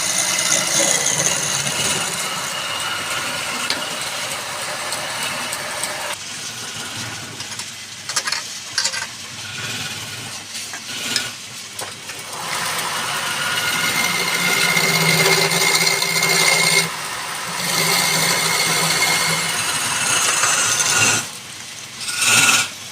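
A woodworking machine running with a rattling, mechanical noise that eases off for a few seconds in the middle, then picks up again.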